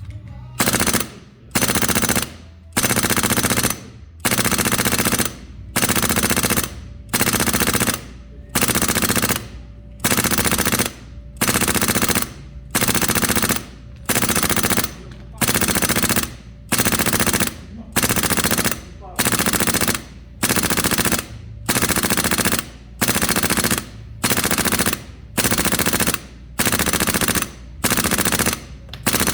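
Polaris AK-12 gas-blowback airsoft rifle on HPA firing full-auto bursts of about a second each, one after another with short pauses, roughly every second and a half.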